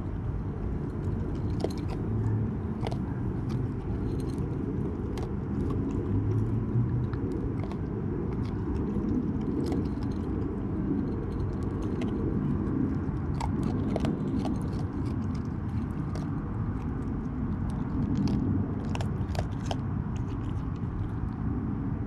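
Raccoon chewing dry kibble close by, with many small, sharp crunches scattered throughout, over a steady low rumble.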